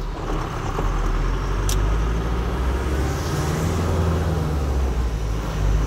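Vehicle driving along a rain-soaked road, heard from inside the cab: a steady low engine hum with the hiss of tyres on wet asphalt.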